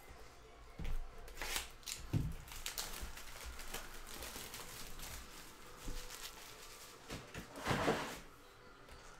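Clear plastic shrink wrap being slit and pulled off a cardboard trading-card box, crinkling and rustling in several bursts, the loudest near the end. A few light knocks come as the box is handled.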